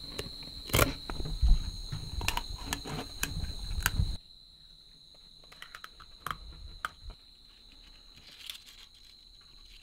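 Knife and hands working a rattlesnake carcass on a wooden board: scattered clicks and taps with rumbling handling noise. About four seconds in, the level drops suddenly to faint, occasional clicks. A steady high-pitched drone of night insects runs underneath.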